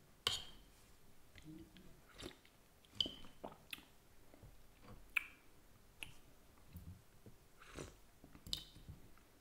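A metal spoon clinking and scraping against a soup bowl, a few sharp ringing clinks a couple of seconds apart, with soft mouth sounds of eating soup from the spoon.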